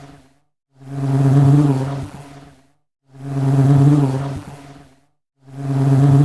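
Honey bee buzzing in repeated passes, each swelling up and fading away over about two seconds, with short silent gaps between them.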